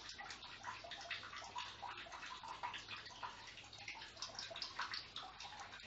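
Faint, steady background hiss with a low hum: room and microphone noise between the narrator's phrases.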